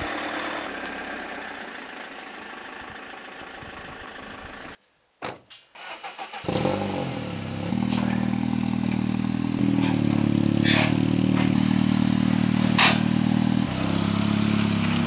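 A steady hiss fades out, and after a short break the Saab 9-3 rally car's engine starts and runs at a steady idle. Two short, sharp sounds come over the idle near the end.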